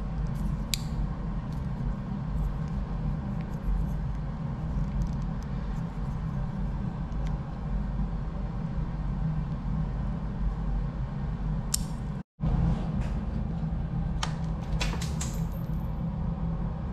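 Small plastic clicks and taps of a screwdriver prying at a snowmobile throttle housing and its wiring connector, over a steady low hum. There is a cluster of clicks near the end, and the sound cuts out completely for a moment about twelve seconds in.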